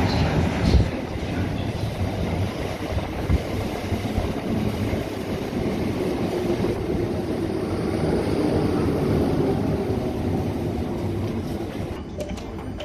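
South Western Railway Class 455 electric multiple unit running along the platform: a steady rumble of wheels on the rails. Near the end the sound changes abruptly, going quieter, with a few faint high steady tones.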